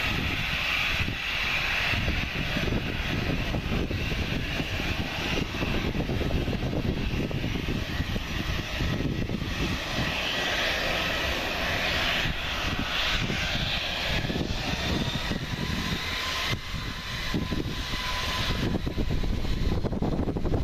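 Airbus A320 turbofan engines at taxi power as the airliner taxis and turns, a steady whine.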